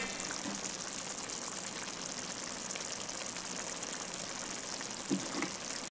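Egyptian pot kebab (beef chunks in an onion sauce) simmering in a carbon steel wok, a steady soft bubbling and sizzling hiss with fine crackles. A brief low sound stands out a little after five seconds.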